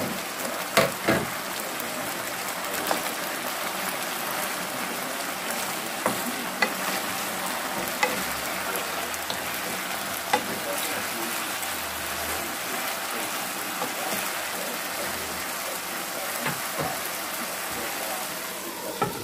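Pork and vegetables frying in a pan with a steady sizzle, broken by scattered clicks and scrapes of a wooden spatula stirring them.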